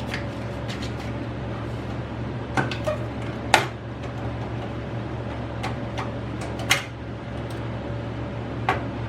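Scattered sharp clicks and light knocks of hard computer parts being handled, the loudest about three and a half seconds in, over a steady low hum.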